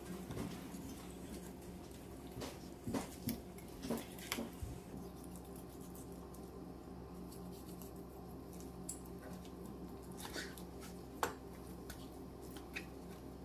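Faint, scattered knife clicks and soft squishy sounds of raw chicken thigh being handled and cut away from its bones, with most taps in the first few seconds and a few more near the end, over a steady low hum.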